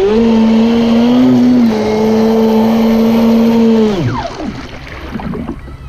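Proboat Impulse 31 RC boat's brushless electric motor and drive whining at a steady high pitch at full speed, heard from the onboard camera over hissing water spray. About four seconds in, the whine drops sharply in pitch and fades as the motor winds down, leaving water splashing and sloshing against the hull.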